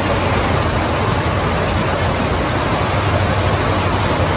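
Steady rushing water-park ambience, with water running down the slides and splashing into the pools over a low rumble.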